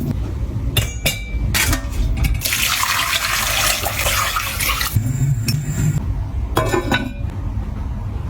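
Water running from a kitchen tap for about two and a half seconds, as if filling or rinsing a pot, with a few knocks and clinks of kitchenware before and after it.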